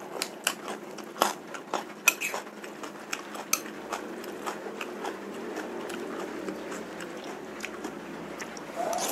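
Metal spoon clicking and scraping against a ceramic bowl of bakso, with close-miked chewing of meatballs and noodles. The spoon clicks are most frequent in the first few seconds, and steady chewing sounds follow.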